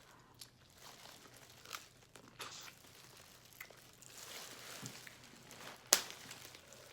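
Quiet crinkling and rustling with scattered small clicks as crab shells are handled and broken open, ending in one sharp crack about six seconds in.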